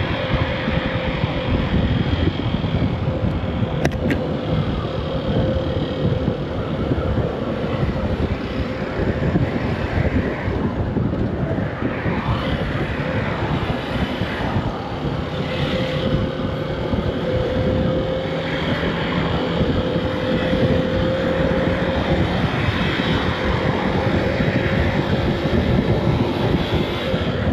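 Honda CB125F's single-cylinder four-stroke engine running at low speed under the rider, its note drifting gently up and down, mixed with steady wind and road rush as the motorcycle filters slowly through queued traffic.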